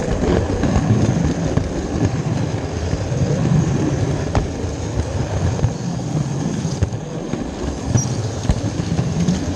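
Model train running on its track, heard from a camera riding on a rail car at the front of the train: a steady close rumble of wheels on rail with frequent clicks, one sharper click about four and a half seconds in.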